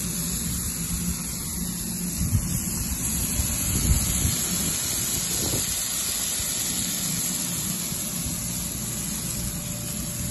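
Raw beef patties sizzling on the hot steel griddle top of a propane gas griddle: a steady, even hiss over a low rumble.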